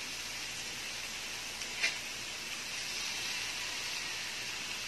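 Chicken pieces and crab sticks sizzling steadily on a round grill pan, with a single sharp click about two seconds in.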